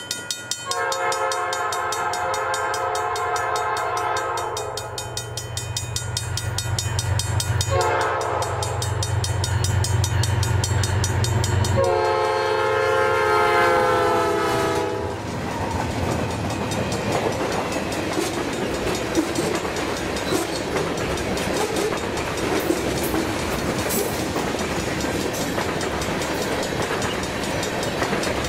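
Eastbound CN freight train with a GE ES44DC diesel locomotive in the lead. The locomotive's horn sounds three times, a long blast, a short one and a second long blast, while the engines' low rumble grows as they approach. After the last blast ends, the tank cars roll past with steady wheel noise and clicking over the rail joints.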